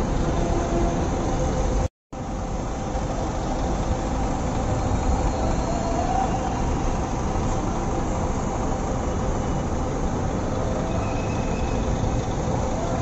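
Bus station din: a steady rumble of bus engines running, with a few steady hums over it. The sound cuts out completely for a moment about two seconds in.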